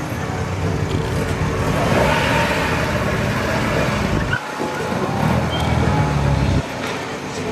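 Classic car engines running as the cars drive in. The sound breaks off sharply about four and a half seconds in, then returns louder, and drops again near the end.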